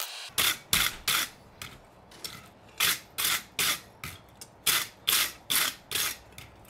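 Steel wire brush scrubbed back and forth over forged mild-steel tongs lying on a steel anvil face, in short scraping strokes about two a second.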